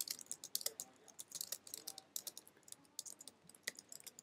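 Typing on a computer keyboard: a quick, irregular run of light keystrokes as a line of text is typed.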